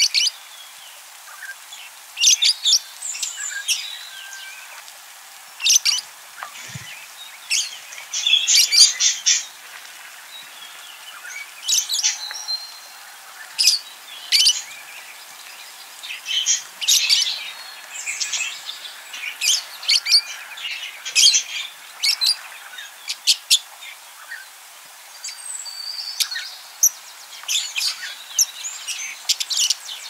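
Budgerigars chirping and chattering: short, bright calls that come in quick clusters all through, from more than one bird.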